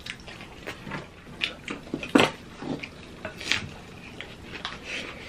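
Close-up eating sounds: crisp, crunchy bites and chewing of breaded fried pork cutlet and salad lettuce, coming as irregular crackles. The loudest crunch is about two seconds in.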